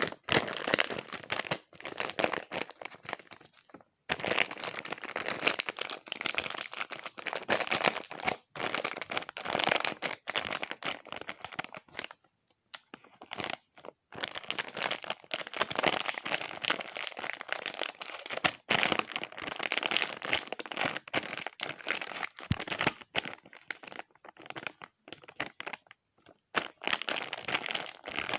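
Irregular crinkling and crackling, like something being crumpled, going on almost without a break apart from a few short pauses.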